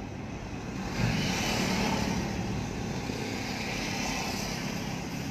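Road and engine noise inside a moving car's cabin, with trucks passing alongside; the rumble grows louder about a second in and then eases slightly.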